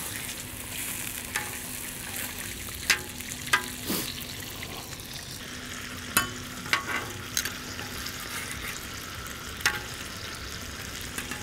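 Hash brown patties and bologna slices sizzling in grease on a steel flat-top griddle. Over the steady sizzle come about a dozen sharp clicks and scrapes as a metal spatula and tongs strike the griddle surface while the patties are flipped.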